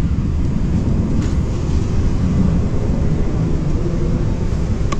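Steady low rumble of Airbus A380 aircraft noise, with a faint click about a second in and another near the end.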